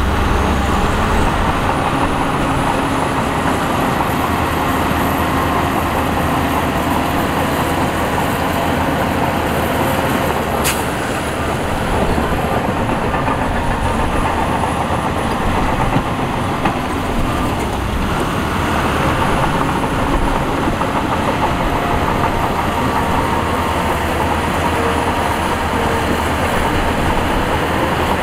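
Heavy diesel machinery running steadily, with a thin high whine that climbs over the first few seconds and again in the second half. A single sharp click comes about ten seconds in.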